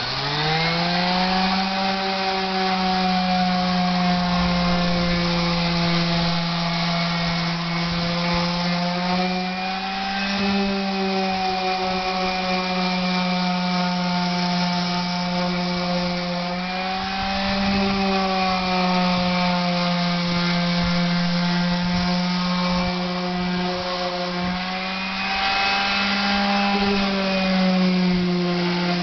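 Power sander sanding fibreglass boat gelcoat: the motor starts and winds up to speed, then runs with a steady whine, its pitch rising and falling slightly a few times as it works the surface.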